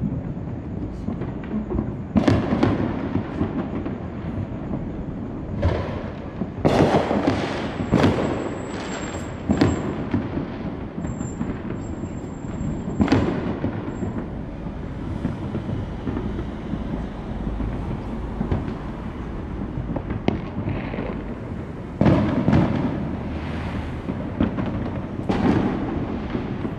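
Consumer fireworks going off all around, one bang overlapping the next: a constant rumble of distant explosions with louder clusters of bangs and crackles near the start, in the middle and near the end. Brief thin high whistles come through in the middle.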